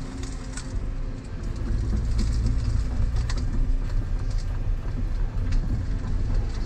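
Volvo EC140EL excavator's diesel engine running under hydraulic load, heard from inside the cab while the arm works a pile of brush; the engine picks up again over the first second or two. Scattered clicks and cracks sound over it.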